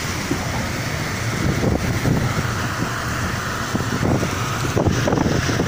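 Wind buffeting a phone microphone over the steady rumble of a moving vehicle.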